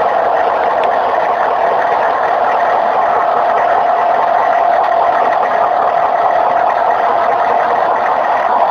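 Humvee's engine running steadily at low speed as the vehicle creeps along a trailer's metal loading ramps: an even hum with no breaks.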